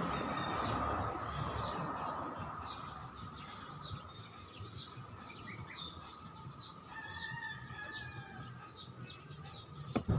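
Small birds chirping and twittering repeatedly in short high notes over a low background rumble, with a single sharp click near the end.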